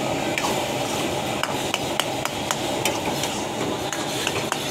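A long metal ladle stirring shrimp in thick tomato gravy in a steel karahi, clinking and scraping against the pan in irregular sharp knocks, about two a second, over a steady background hiss.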